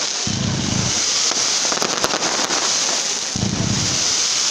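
Fireworks display: a dense, continuous crackle and hiss of crackling stars and fountains, studded with many sharp pops and cracks. Two low rumbles come through, a quarter-second in and again past three seconds.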